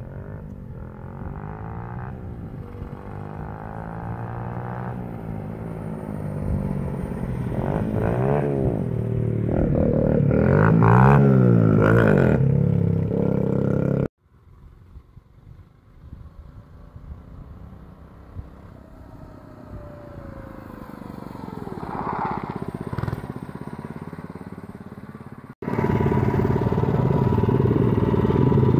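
A pit bike's small Predator 99cc single-cylinder engine running as the bike is ridden. Its pitch rises and falls with the throttle and it grows louder as the bike comes close and passes. After a sudden change it is heard farther off, swelling again about two-thirds of the way in, then loud and close, heard from on the bike, near the end.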